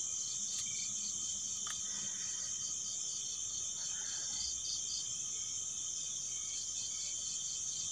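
Insects chirping steadily: a constant high trill with a pulsing note repeating about four times a second.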